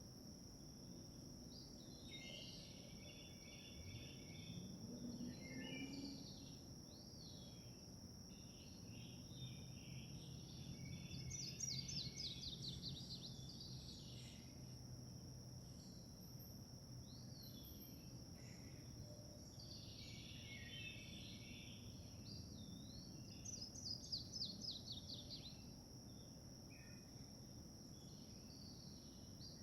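Faint mixed birdsong, several birds calling on and off over a steady high insect drone. A louder rapid trill comes twice, about a third of the way in and again near the end.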